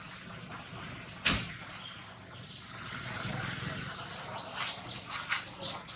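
Dry leaf litter rustling and crackling under moving monkeys, with one sharp click about a second in.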